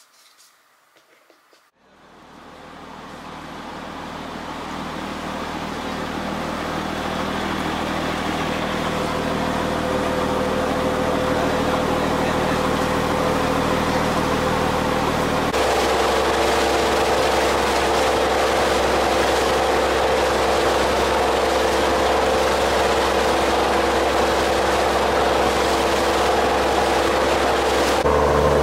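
Fishing boat's engine running steadily under way, with the rush of water from the wake along the hull. It starts after a couple of seconds of near silence and builds gradually, and the engine hum changes abruptly about halfway through.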